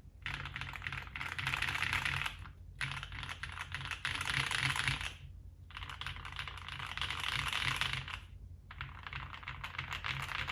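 Mode Eighty mechanical keyboard with lubed Cobalt POM switches on a polycarbonate plate and GMK keycaps, typed on in fast runs of keystrokes. Typing breaks off briefly three times, near 2.5, 5.3 and 8.3 seconds in.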